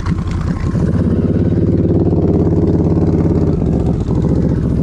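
Can-Am Renegade 1000R XMR ATV's V-twin engine running at a steady throttle. It breaks up briefly at the start, then holds an even pitch with a slight step down in pitch near the end.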